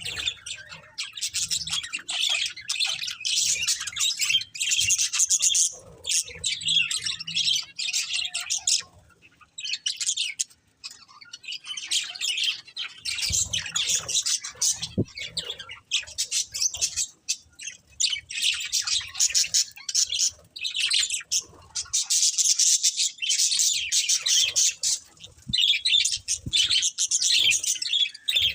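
Budgerigars chattering and chirping in rapid, dense runs of high twittering notes, with a few brief lulls.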